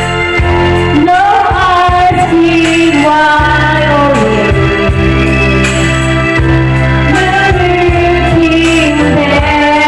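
Woman singing a slow, held melody into a handheld microphone over an instrumental backing track.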